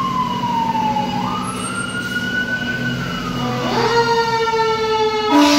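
Fire apparatus sirens: a wail sweeps down and back up, then about three and a half seconds in a second siren winds up and holds a steady tone over a fire engine's idling engine. Near the end an air horn starts blasting.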